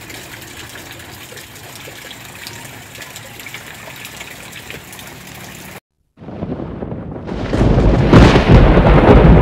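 Light rain falling on floodwater and wet leaves, a steady soft hiss. It cuts off about six seconds in, and a loud rumbling, thunder-like outro sound effect swells up in its place.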